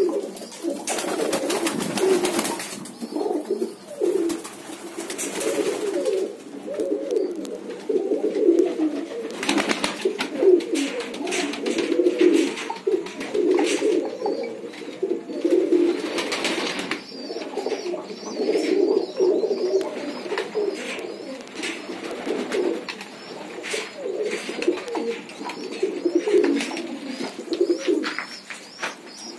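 A flock of domestic pigeons cooing continuously, many low coos overlapping with no break.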